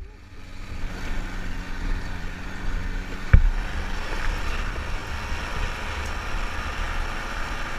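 Open-frame off-road buggy driving on a dirt track: its engine and a low wind rumble on the microphone, with one sharp knock a little over three seconds in.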